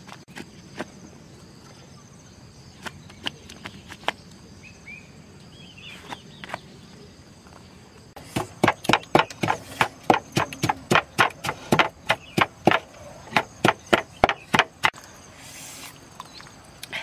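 Stone pestle pounding in a wooden mortar: a run of sharp, evenly spaced strikes, about four a second, starting about eight seconds in and lasting some six seconds. Before it, only faint scattered ticks and a few short chirps.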